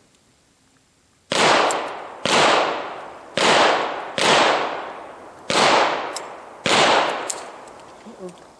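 Sig Sauer 1911 pistol firing six shots, roughly one a second, each sharp crack trailing off slowly.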